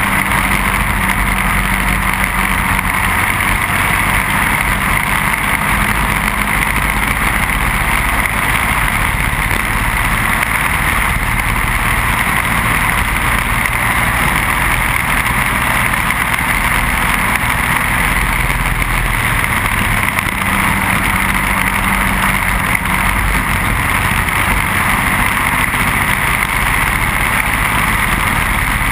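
Briggs & Stratton Animal single-cylinder four-stroke kart engine running hard at racing speed, heard on board the kart. The engine sound is loud and steady, with only small shifts in engine note.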